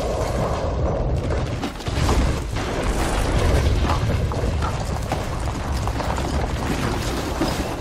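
Cave-in: a heavy low rumble of rock collapsing, with many stones clattering and knocking as they tumble down.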